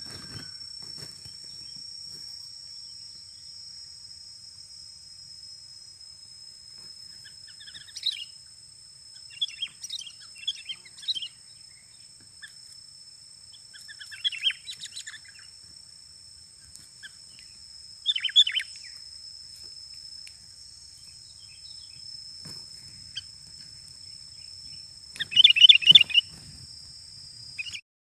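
Sooty-headed bulbuls calling in short chirping bouts, several seconds apart, with the loudest bout near the end. The calls sit over a steady high-pitched insect drone.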